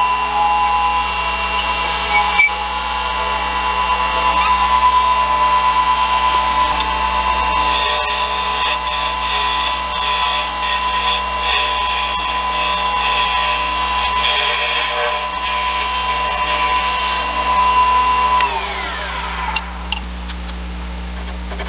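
Variable-speed wood lathe running with a steady whine while the cedar spindle spins; for about ten seconds in the middle a rough rubbing hiss rises over it as something is held against the turning wood. About three seconds before the end the whine falls in pitch and dies away as the lathe winds down to a stop, followed by a few light clicks.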